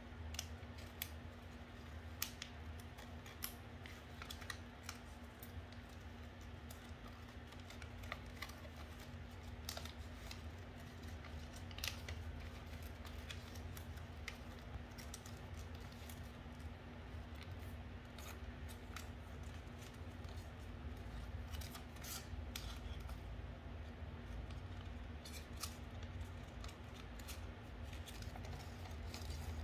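Sheets of colored origami paper crinkling and rustling in the hands as they are creased and folded, in scattered soft crackles and clicks over a faint steady background hum.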